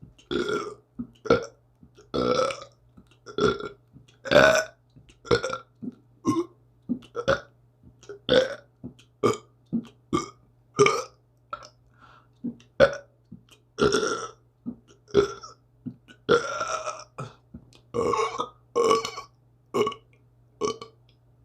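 A long run of human burps in quick succession, roughly one to two a second. Most are short, and a few are longer and drawn out.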